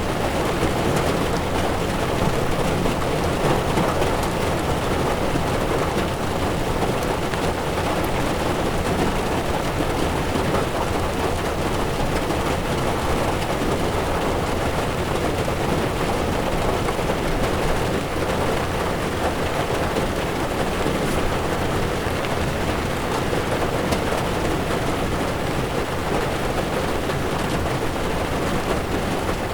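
Heavy rain drumming on a car's windshield and roof, heard from inside the moving car over a steady low rumble of tyres on the wet road.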